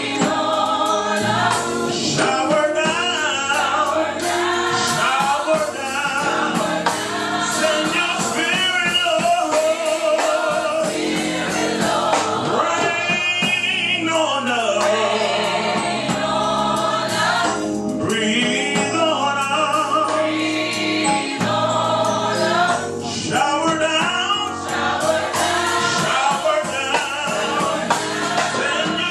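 Gospel worship song: a lead singer and choir singing with band accompaniment.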